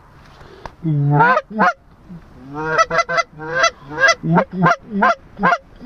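Goose calling: one long honk about a second in, then a quick run of about ten short, loud honks and clucks, of the kind a hunter blows on a goose call to turn a passing flock toward the decoys.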